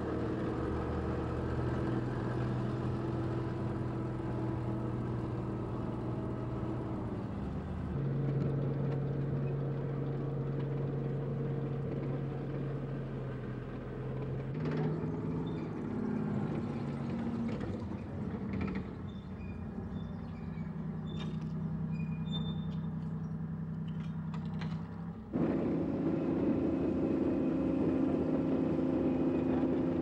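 Military vehicle engines running with a steady drone, the engine note jumping to a different pitch a few times.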